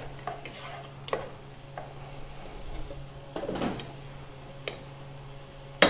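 Wooden spoon stirring diced onion and garlic in hot oil in a pot: a faint sizzle with scattered light taps and scrapes of the spoon against the pan, and a sharper tap near the end. The onion and garlic are being sweated until translucent. A steady low hum runs underneath.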